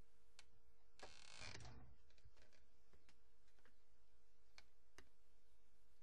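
Faint scattered clicks and a short rustle about a second in, over a steady low electrical hum.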